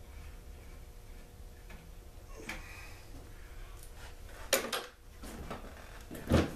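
A small two-stroke generator being handled during disassembly: a few scattered knocks and clunks of its housing and parts against the wooden workbench. The loudest come about four and a half seconds in and just before the end.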